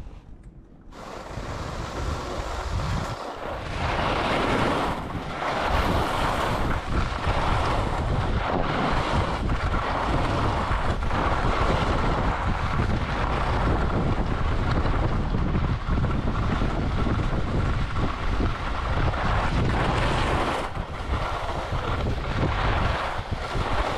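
Wind rushing over a camera microphone while skiing downhill, a loud steady rush that builds up about a second in.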